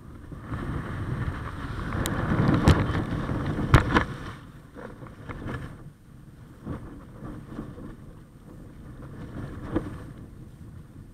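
Wind rushing over a kite-mounted camera as the kite comes down. The kite hits the water with sharp slaps and splashes about three to four seconds in. Then small waves splash against the kite as it lies in the water.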